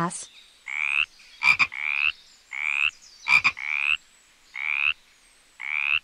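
A frog croaking over and over: about eight short, rising, rasping calls, roughly one a second, with a sharp click twice among them.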